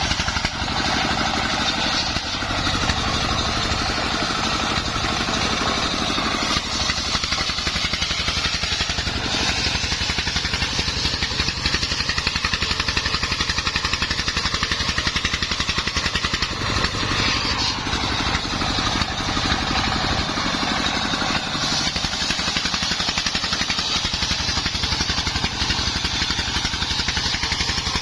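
Engine-driven circular saw rig running steadily, its blade sawing timber into battens.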